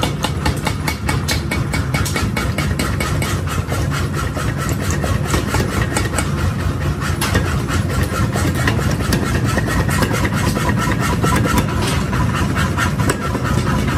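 Power hammer pounding a red-hot axe head in rapid, even blows, several a second, over the steady hum of the machine running.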